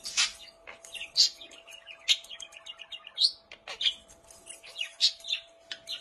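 Budgerigar chattering in quick, bright chirps, mixed with sharp clicks as it pecks and noses the plastic balls of its perch toy.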